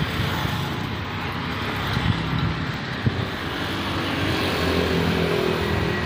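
Steady road traffic noise, with a vehicle engine getting a little louder in the second half. Two short knocks, about two and three seconds in.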